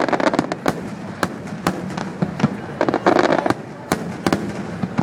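Fireworks display: a rapid, irregular series of sharp bangs and cracks, with denser crackling clusters right at the start and again around three seconds in.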